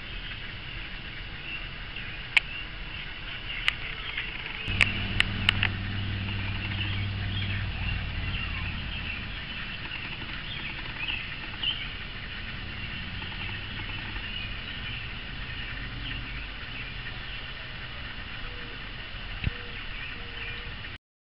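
Steady outdoor background noise with faint chirping, broken by a handful of sharp clicks a few seconds in and once more near the end. A low hum joins for a few seconds about five seconds in, and everything cuts off suddenly just before the end.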